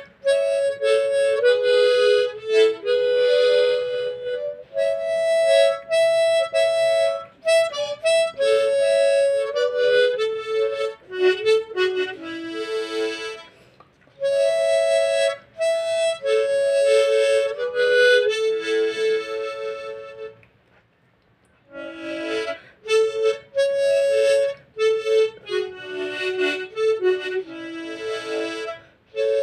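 Harmonica playing a song melody in phrases of held notes, with a short breath-like gap about two-thirds of the way through.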